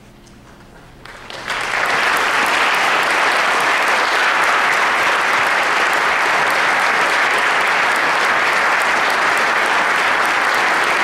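The last chord of the choir and piano fading away, then a concert audience breaking into applause about a second in, quickly building to loud, steady clapping.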